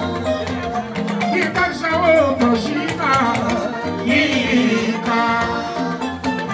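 Live Fuji music: a man sings lead into a microphone over a drum-led band, his voice rising and falling against steady percussion.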